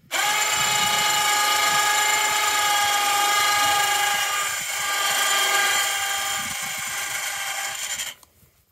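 A homemade log crane's winch motor runs with a steady whine as it lowers a log block held in log tongs. It starts abruptly, dips slightly in pitch and level about halfway through, and cuts off about eight seconds in.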